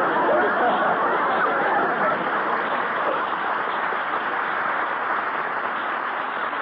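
Live studio audience laughing in a long, steady wave that slowly dies down.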